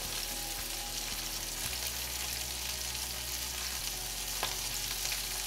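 Sablefish (black cod) portions frying skin side down in olive oil in a cast-iron skillet, a steady sizzle.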